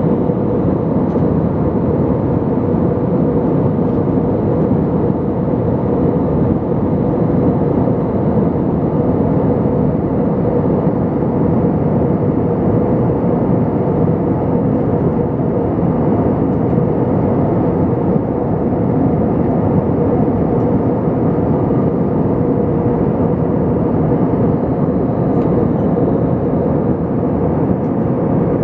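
Airbus A320 cabin noise in flight: the steady roar of the jet engines and rushing airflow heard from a window seat, with a constant drone tone running through it.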